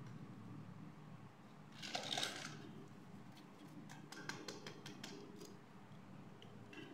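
Small plastic toys handled and set down on a hard surface: a brief rustling scrape about two seconds in, then a run of light plastic clicks and taps as a butterfly-shaped toy makeup palette is handled.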